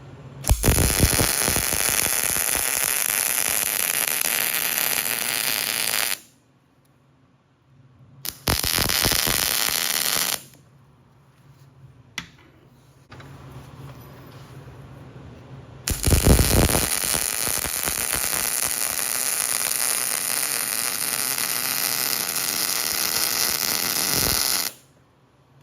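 Electric arc welding on a steel PTO yoke: three welding runs with a steady crackling hiss. Each starts with a sharp crack. The first lasts about six seconds, the second about two, and the third, about sixteen seconds in, about nine.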